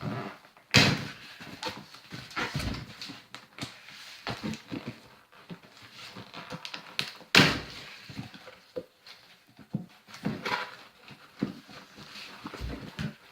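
Cardboard box and packaging being handled and rummaged through: rustling and small knocks, with two loud thumps, one about a second in and one about seven seconds in.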